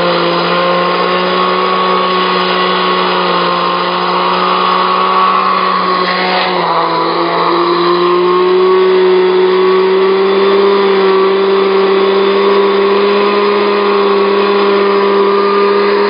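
Household countertop blender motor running steadily, grinding dry bread crumbs into a fine powder. About six and a half seconds in, its whine dips briefly, then climbs and holds a little higher.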